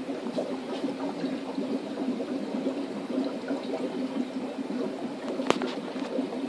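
Steady gurgling and trickling of aquarium water from the tanks' filtration, with one sharp click near the end.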